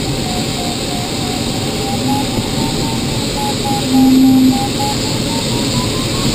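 Airflow rushing over a glider's canopy in flight, with the electronic variometer beeping in short, quick pulses; their pitch dips and then climbs again near the end. About four seconds in, a lower, louder steady tone sounds for about half a second.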